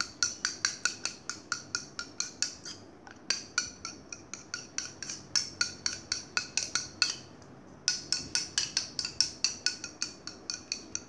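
Metal spoon stirring in a ceramic bowl, clinking rapidly against its side at about four or five strikes a second, with a short pause a little after halfway.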